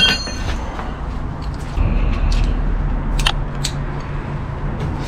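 A wrench and hand tools clinking and tapping against metal while the new starter's mounting bolt is tightened: a ringing metal clink at the start, then scattered short clicks and taps, over a steady low rumble.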